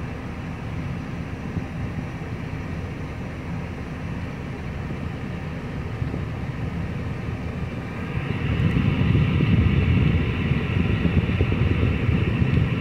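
Steady low rumble of heavy diesel vehicle engines, growing louder about eight seconds in.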